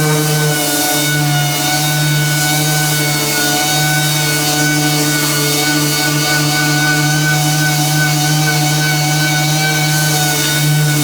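Steady, loud machine drone: a strong low hum with several higher whining tones held at a fixed pitch throughout.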